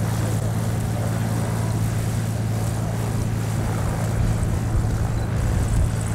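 Extra 300 aerobatic plane's six-cylinder Lycoming piston engine idling as it taxis, a steady low drone with its propeller turning. Some wind rumble on the microphone comes in near the end.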